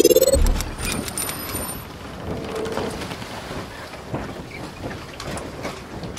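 Logo-intro sound effect: a rising sweep peaks right at the start and lands on a deep boom about half a second in. It is followed by an even crackling, rain-like hiss with scattered clicks.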